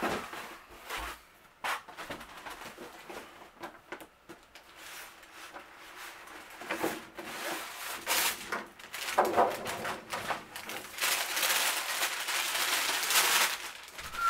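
A cardboard shoebox being opened: a few light knocks and a scrape as the lid comes off, then tissue paper rustling and crinkling as it is unfolded, loudest and most continuous in the last few seconds.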